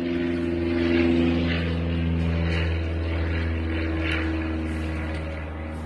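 A steady motor drone: a low hum with a few steady tones above it. It grows a little louder about a second in, then slowly fades.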